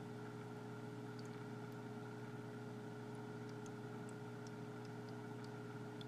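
Faint steady electrical hum of a small mains-powered motor, with a few faint ticks scattered through it.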